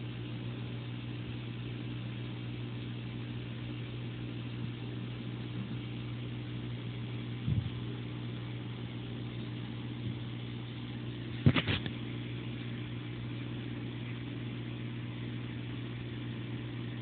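Submersible aquarium filter pump humming steadily, a low hum with overtones. A soft knock comes about seven and a half seconds in, and a louder cluster of sharp knocks about eleven and a half seconds in.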